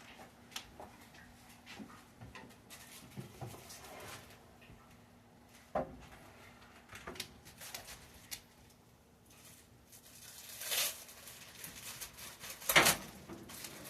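Household handling noises: scattered light clicks and knocks, with a sharper knock about six seconds in, a brief rustling hiss later and the loudest thud near the end.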